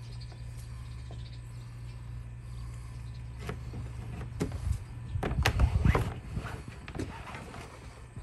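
Bungee cord being pulled and threaded through the plastic deck fittings of a kayak, with scattered clicks and rubbing of cord against the hull. A steady low hum runs under the first half, and there is a louder stretch of low thumps and rubbing about five to six seconds in.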